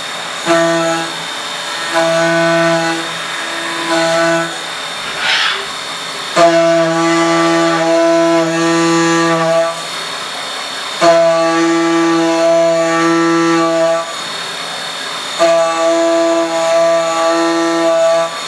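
CNC milling machine's end mill cutting metal: a steady buzzing tone at one unchanging pitch with strong overtones that starts and stops in stretches, about half a dozen times, as the cutter moves into and out of the cut, over a faint high spindle whine.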